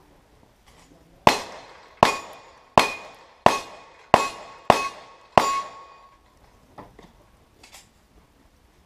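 Seven gunshots in quick succession, about two every second and a half, each with steel targets ringing after the hit. A few faint clicks follow.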